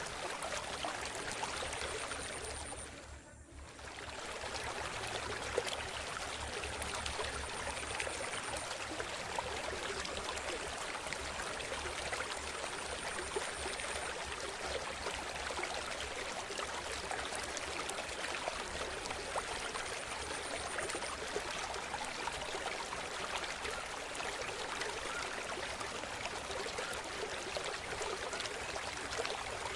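River water trickling and splashing in a steady, even rush. The sound briefly dips and fades back in about three seconds in.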